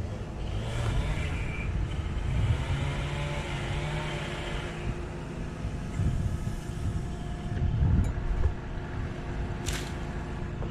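Bucket truck engine running steadily, powering the boom's hydraulics, with a hissing whine in the first half and a sharp click near the end.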